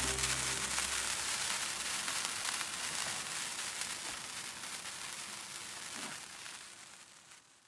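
A sparkler fizzing and crackling, a fine hiss of tiny crackles that slowly fades away over several seconds. The last of a music chord dies out in the first second.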